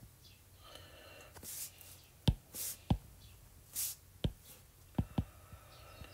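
Stylus tapping on an iPad screen during handwriting: a handful of sharp taps, with a few short soft hissy sounds between them.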